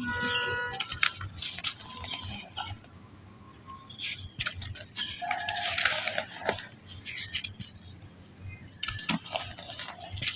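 Soft dry black sand balls crumbling and breaking apart, with crackling grains and bursts of crunching. A brief pitched call with several overtones sounds at the very start.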